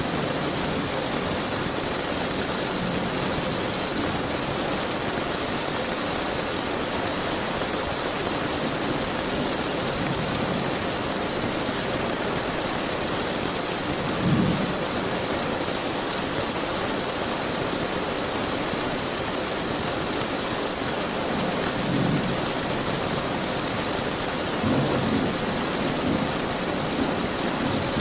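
Steady heavy rain falling, with short low rumbles of thunder: one about halfway through and a few more near the end.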